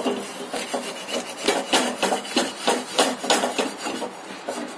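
A spoon scraping against a tawa griddle to loosen a freshly cooked naan, in a quick run of rasping strokes about three a second.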